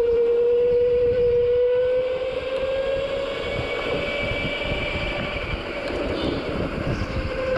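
Go-kart engine running at high revs with a steady, high-pitched note that dips slightly and then rises again, over a rough low rumble.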